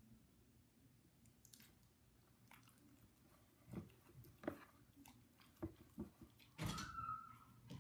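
French bulldog licking and mouthing small apple pieces: quiet at first, then from about halfway a run of sharp mouth smacks and clicks, loudest just before the end.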